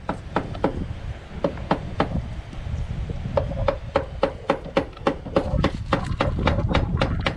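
Hammer taps on a wooden post, a few light, irregular strikes a second, as staples are driven in to fasten electrical cable to the wood.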